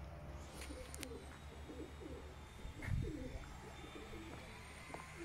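Pigeons cooing, a faint series of repeated soft coos, with a brief low thump about three seconds in.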